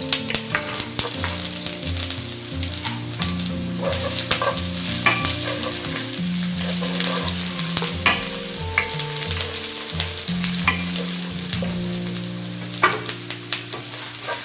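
Chopped onion and garlic sizzling in hot oil in a wok. A wooden spatula scrapes and taps against the pan as they are stirred.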